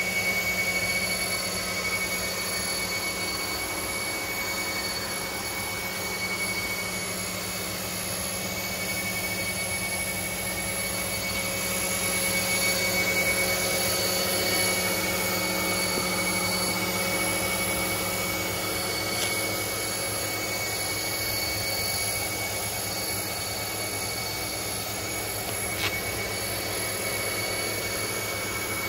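Steady machine hum with a thin high whine, a little louder for a few seconds midway, with two faint clicks.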